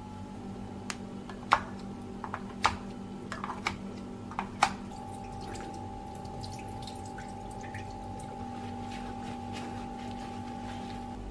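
Several sharp clinks of glass bottles and bowls being set down, then water sloshing and dripping as raw beef is rinsed in a glass bowl at a steel sink. A steady faint hum runs underneath.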